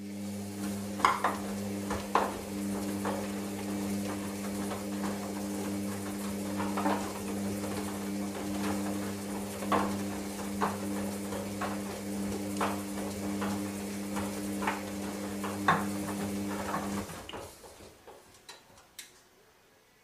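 Hoover Dynamic Next DXA 48W3 washing machine turning its drum during the wash: a steady motor hum, with the laundry tumbling and clicking against the drum. The drum stops about seventeen seconds in, leaving a few light ticks.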